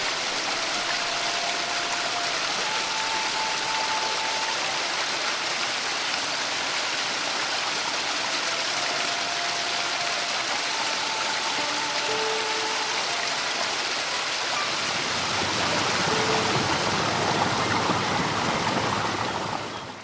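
Shallow rocky stream rushing over stones, a steady hiss of running water, with faint held music notes underneath. About fifteen seconds in the water grows louder and deeper.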